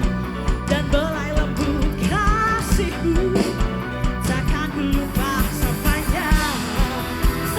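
Live dangdut band playing, a wavering melody line over a steady drum beat.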